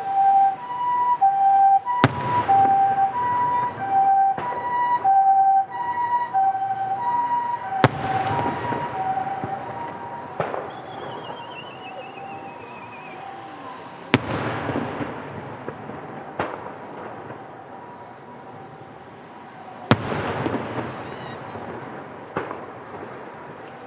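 A two-tone hi-lo siren in the Japanese ambulance pattern, switching between its two pitches about once a second and fading away after about ten seconds. Fireworks shells burst with sharp booms and echoing tails about six times.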